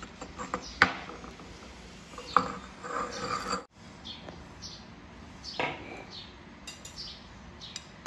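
Stone pestle knocking and scraping in a granite mortar, stirring a liquid som tam dressing, for the first few seconds. The sound cuts off suddenly and the rest is quieter, with one more knock.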